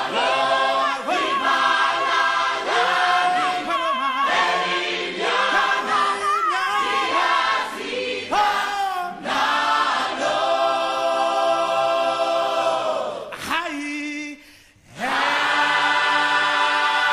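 A choir singing in long held phrases with vibrato, with a short break about three-quarters of the way through before a long held chord.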